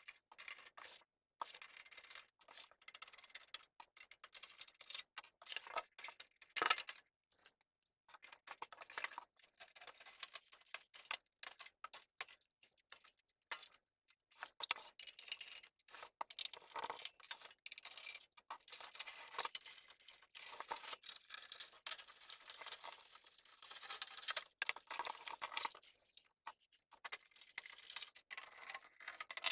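Irregular clicks, taps and scraping rustles of small metal and plastic computer parts being handled as a desktop PC is taken apart, with a sharper knock about seven seconds in.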